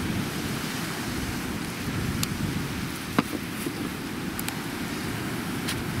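Wind buffeting the microphone: a steady low rumble, with a few faint clicks.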